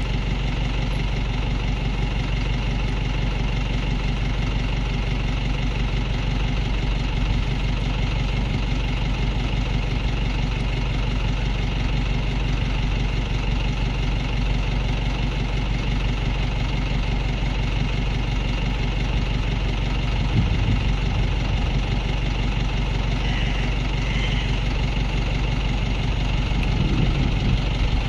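An engine idling steadily: a low, even hum that does not change.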